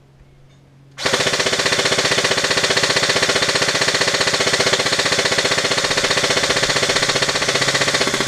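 HK416 airsoft electric rifle firing a long, fast string of shots as a rapid, even rattle. It starts about a second in and stops abruptly near the end.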